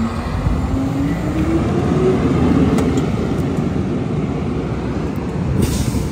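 Mack Granite garbage truck's diesel engine revving up as the truck pulls away, its pitch climbing over the first two seconds, then pulling steadily as the truck drives off. A short hiss near the end.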